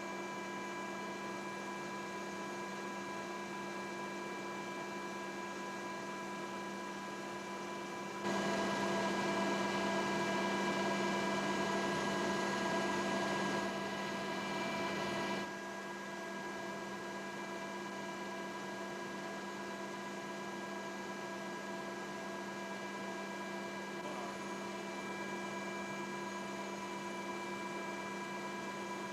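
Steady electrical hum and hiss with several fixed tones and no program sound. It grows louder about eight seconds in and drops back about seven seconds later.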